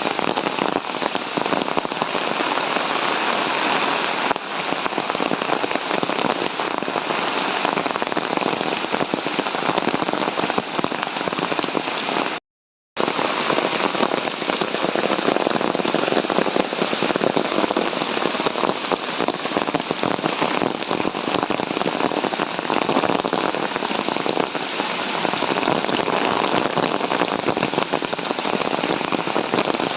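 Heavy monsoon rain falling steadily, a dense even hiss of drops; the sound cuts out for about half a second around twelve seconds in.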